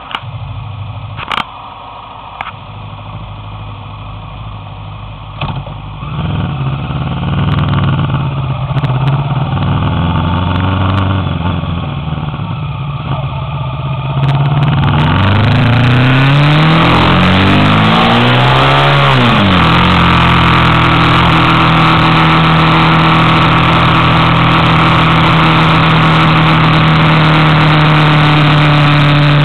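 Motorcycle engine running at low revs at first, with a few sharp clicks, then accelerating about halfway through: several rising sweeps in pitch as it goes up through the gears, settling into a steady run with wind rushing over the microphone.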